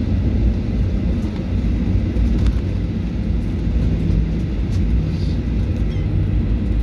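Steady low rumble inside the cabin of a Boeing 737 MAX 8 rolling along the taxiway after landing, with a few faint ticks.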